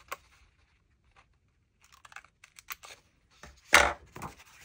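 Scissors trimming the overhanging edges of paper planner stickers: a run of light snips, then one much louder cut near the end.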